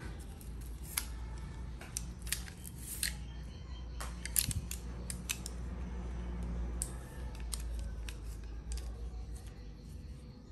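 Packaging being opened and handled by hand: an irregular run of sharp snips, crinkles and small clicks over a low steady hum.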